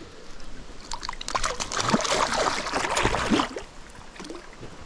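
A small hooked fish splashing at the water's surface beside the boat as it is unhooked, a run of splashes from about a second in until about three and a half seconds.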